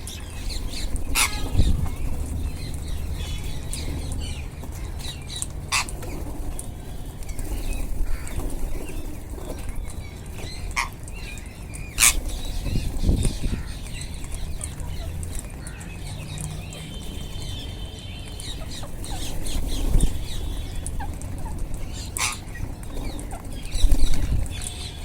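A flock of rose-ringed (Indian ringneck) parakeets feeding: soft chirps and rustling throughout, with about four short, sharp sounds standing out, and wing flaps.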